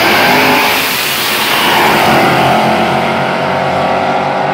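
Two street-race cars launching hard from the line and accelerating away at full throttle. Loud engine and tyre noise bursts out at the start, then thins out near the end as the cars pull away down the road.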